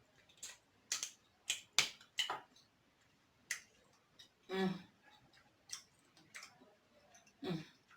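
Close-miked mukbang eating of a seafood boil: a scattered series of short, sharp clicks and cracks, about a dozen, from handling and breaking shellfish shells and from the mouth, with two longer mouth sounds, one about halfway through and one near the end.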